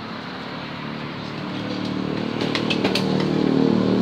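Motor scooter's small engine running, getting steadily louder, with a few sharp clicks between two and a half and three seconds in.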